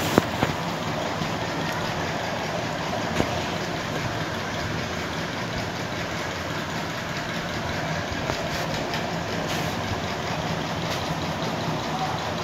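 Steady background noise with a low hum, with a few faint clicks, one right at the start and another about three seconds in.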